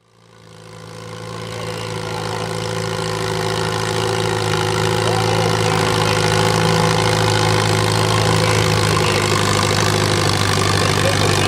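Farmall tractor's engine running at a steady pitch under load as it pulls a weight sled, fading in over the first two seconds.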